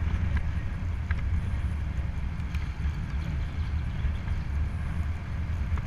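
Wind buffeting the microphone of a helmet-mounted camera on a moving road bike: a steady, dense rumble with a few faint ticks.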